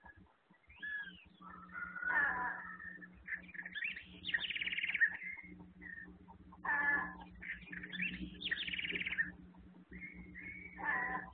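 Bird calls: short arching notes and, twice, a rapid rattling trill, over a steady low hum.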